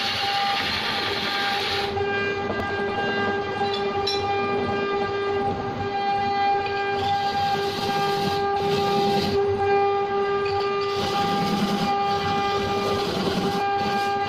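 Belt-driven wood lathe running with a steady whine while a hand chisel cuts into a spinning wooden blank. The cutting adds a rough scraping noise that comes and goes, strongest near the start and again in the last few seconds.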